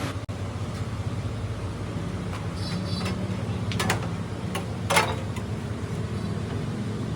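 A machine running with a steady low hum, with a few sharp knocks about four and five seconds in.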